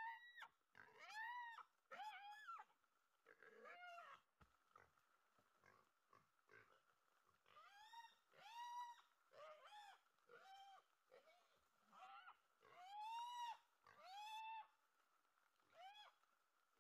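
Wild boar piglet squealing repeatedly from inside a sack: a dozen or more short, high calls, each rising and falling in pitch, coming in irregular bunches with gaps.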